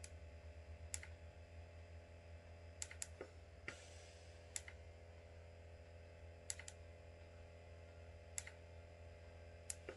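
Near silence: steady low room hum with about ten faint, sharp clicks scattered irregularly through it.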